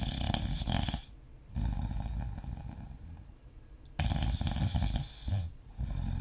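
A person snoring in deep sleep. Two loud snores come about four seconds apart, each about a second long, and each is followed by a softer, longer, lower breath.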